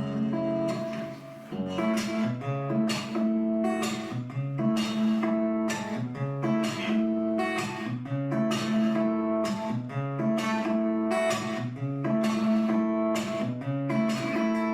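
Acoustic guitar playing a song's instrumental intro, with chords struck in a steady rhythm.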